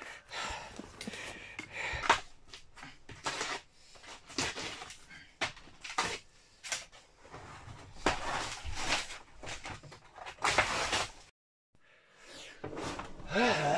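Footsteps, knocks and rustling as someone moves about on wooden attic floorboards among debris, in irregular short bursts, broken by a second of silence near the end.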